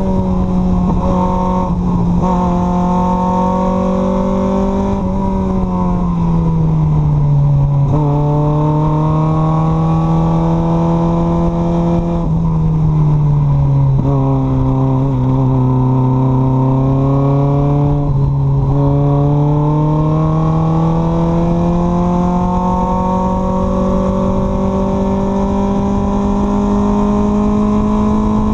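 Mazda Miata 1.6-litre four-cylinder engine running hard in a lightweight track car. Engine speed drops about five seconds in and again partway through, then climbs steadily through the last half as the car accelerates.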